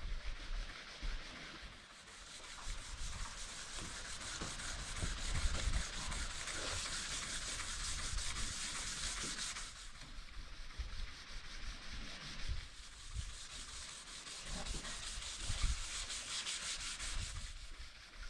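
Sanding: abrasive paper rubbing steadily over a surface in a sustained hiss, its tone shifting about ten seconds in and easing off near the end.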